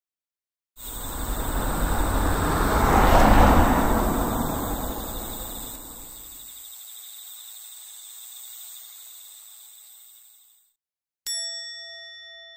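A vehicle drives past, its noise swelling to a peak about three seconds in and then fading away, over a steady high trill of insects. Near the end a single bell-like chime rings and slowly dies away.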